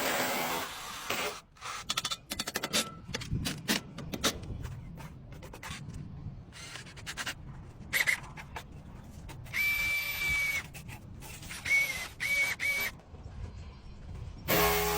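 Tools and parts being handled and scraped in installation work, with scattered clicks and knocks. About ten seconds in comes one held electronic beep, then three short beeps at the same pitch.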